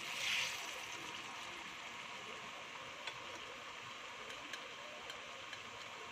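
Banana halves frying in hot oil in a stainless steel pan: a steady sizzle that swells briefly just after the start as a piece is moved with tongs. A few light clicks of metal tongs against the pan later on.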